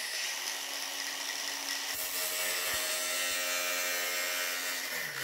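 Cordless Ryobi angle grinder running steadily, its disc cutting into a plastic dustpan; the plastic melts from the friction and speed of the disc rather than cutting cleanly.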